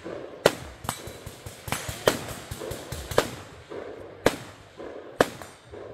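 Gunshots from firearms on a shooting range, about seven sharp single reports at uneven intervals, each with a short echo.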